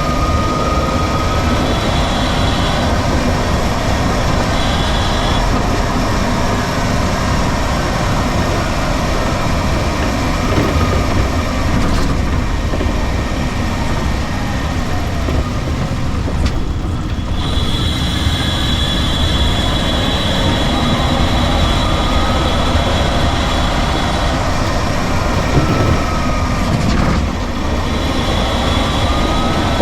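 Drivetrain of a DC-electric VW Beetle conversion heard from the rear of the car while driving: steady road and running noise, with a whine that rises and falls in pitch as the car speeds up and slows. A high steady whine comes and goes in stretches of a few seconds.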